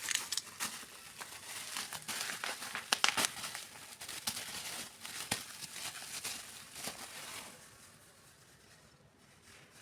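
Plastic packaging crinkling and rustling as it is handled and pulled open, with sharp crackles throughout; it dies down about three-quarters of the way through.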